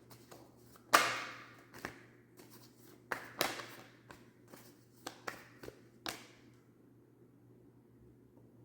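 Tarot cards being handled on a table: a dozen or so sharp taps and clicks over about six seconds, the loudest about a second in, then quiet room tone.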